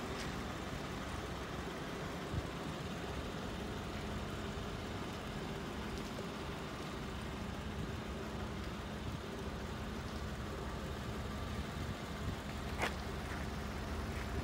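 2015 Chevrolet Tahoe's 5.3-litre V8 idling steadily, exhaust steaming in the cold. A single sharp click near the end.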